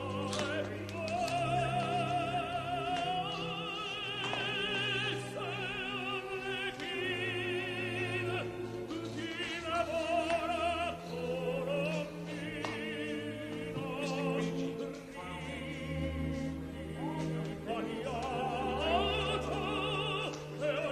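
Operatic singing with a strong vibrato over orchestral accompaniment.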